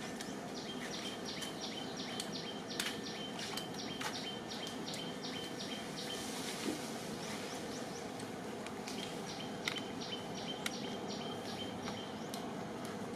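Outdoor woodland ambience: a bird repeats a short falling note about two or three times a second, in two runs, over a steady background of insects and outdoor noise, with a few faint clicks.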